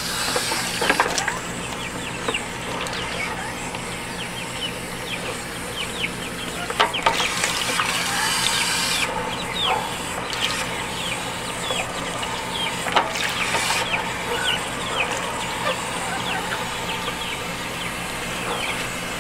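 A flock of young Indian Giant chickens peeping and cheeping, many short falling chirps over one another. Two brief rushes of noise break in, about seven and thirteen seconds in.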